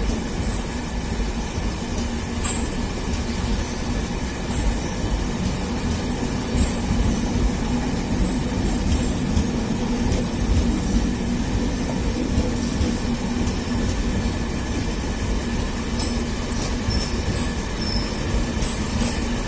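Brand-new BEML three-phase AC MEMU electric train, two sets coupled, rolling past on departure: a steady rumble of wheels on rail with a steady low hum and a few sharp clicks.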